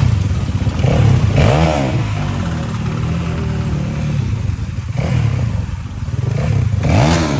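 Motorcycle engine running steadily while riding, revved up and back down twice: once about a second and a half in and again near the end.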